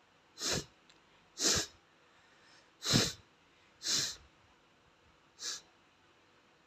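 A boy sneezing five times in quick succession. The sneezes are short and sharp, about a second apart, and the third is the loudest.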